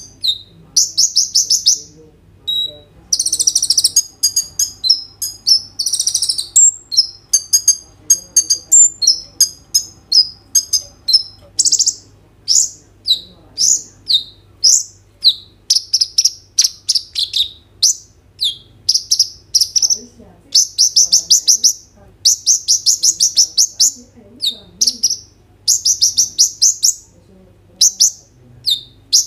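Male purple-throated sunbird (kolibri ninja) singing a full, varied song: high, rapid trills and sharp chipping notes, phrase after phrase with only brief pauses.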